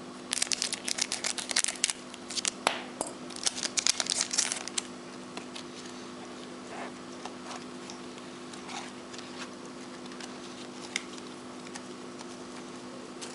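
Trading card pack being opened by hand: a dense run of crinkling and rustling of the wrapper for the first few seconds, then a few scattered light clicks as the cards are handled, over a steady low hum.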